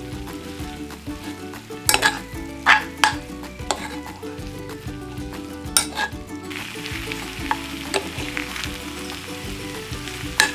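Beef pepper rice (beef, rice and corn) sizzling in a hot pan while being stirred, with sharp scrapes and clinks of the utensil against the pan about two to four seconds in, around six seconds and near the end. The sizzle turns hissier from about six and a half seconds in.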